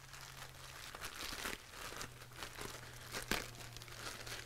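Clear plastic bag crinkling as the bagged electric lift pump motor is handled and turned over, with a sharper crackle about three seconds in.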